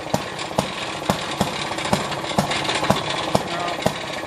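Maytag Model 92 single-cylinder two-stroke engine running on a washing machine, with a sharp knock about twice a second over a steady running sound.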